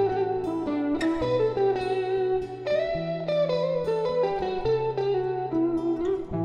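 Instrumental music: plucked guitar with held bass notes, and a sustained, sliding melody line above it from an end-blown flute.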